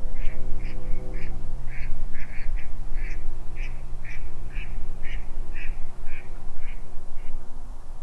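Ducks quacking: a run of short calls about two a second that stops near the end, over a low steady hum and rumble.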